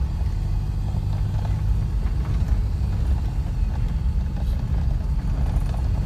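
A car being driven, heard from inside the cabin: a steady low rumble of engine and road noise.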